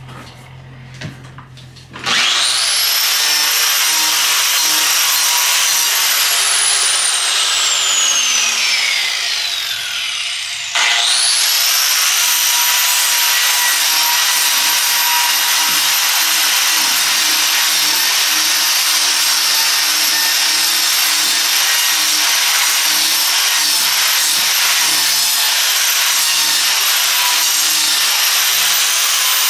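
Electric grinder grinding down a wood burl to take weight off and balance it for turning. It starts with a high whine about two seconds in, is switched off and spins down with a falling whine, then starts again about eleven seconds in and runs steadily.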